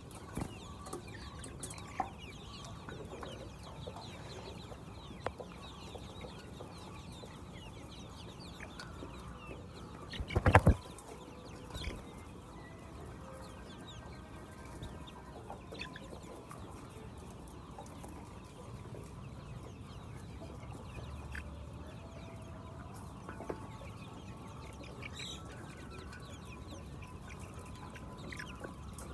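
A flock of laying hens clucking over a steady low background noise, with a single loud bump about ten seconds in.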